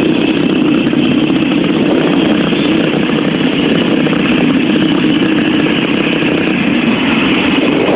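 A motorcycle being ridden at a steady speed, its engine running with a constant loud drone and road rush, heard from on the bike.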